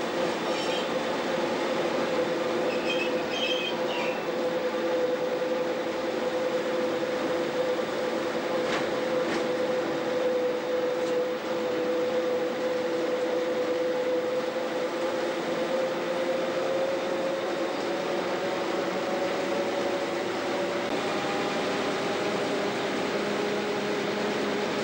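1928 Brill Model 75 railcar running along the line, heard from inside its driving cab: a steady engine drone with wheel and track noise, its note edging up a little about two-thirds of the way through.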